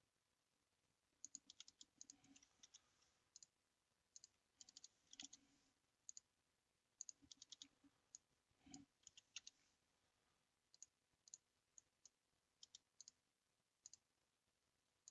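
Faint clicks of a computer mouse at irregular intervals, some single and some in quick runs of several, as shapes are drawn in CAD software.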